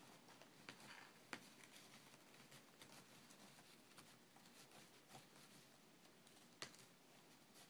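Faint, scattered scratching and a few sharp clicks of a cat's claws on a scratching post.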